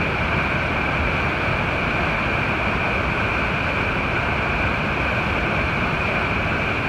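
Upper Falls of the Yellowstone River, a 109-foot waterfall in high flow: a steady, loud rush of whitewater pouring over the brink.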